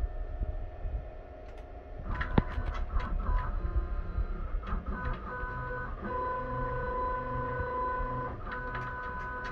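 CNC lathe axis motors whining as they drive the tool toward a touch-off probe during an automatic tool offset measurement cycle. A few clicks about two seconds in, then a steady machine whine that steps between pitches as each move starts and stops.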